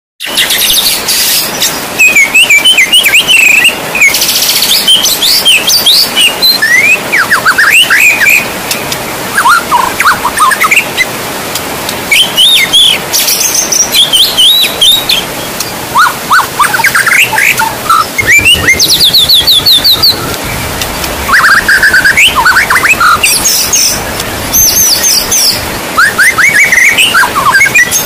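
White-rumped shama singing loudly in varied phrases of whistles, quick trills and sweeping notes, a new phrase every second or two, over the steady hiss of heavy rain.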